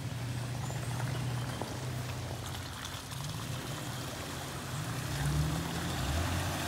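A 4x4's engine running at low revs under an even hiss, its pitch climbing a little and growing louder about five seconds in.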